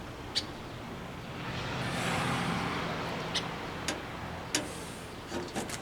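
Several sharp metallic clicks and taps from hands working a tailgate latch and its rods inside the tailgate. A passing vehicle swells up and fades away in the middle.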